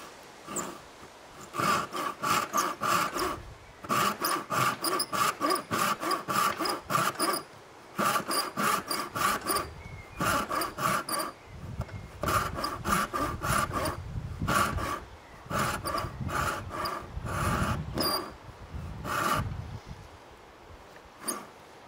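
Disston No. 5 brass-backed backsaw, freshly filed with 6 degrees of rake and 5 degrees of fleam, rip-cutting down into the end of a wooden board. It makes a rasping push-and-pull rhythm of about three strokes a second, in several runs broken by short pauses.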